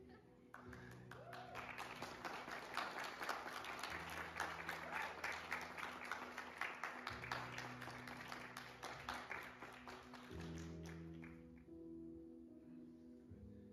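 A small group clapping, starting about half a second in and dying away after about eleven seconds, over soft background music with slowly changing held chords.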